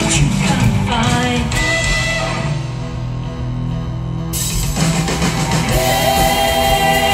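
Live band music with singers: guitar, drums and keyboard under sung vocals. The music thins out briefly, then the full band comes back in about four seconds in.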